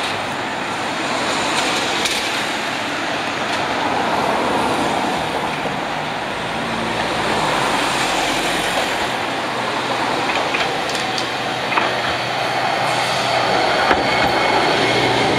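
Street traffic noise as a Toyotetsu T1000 low-floor tram approaches on street-running track. Its running grows a little louder as it draws close near the end.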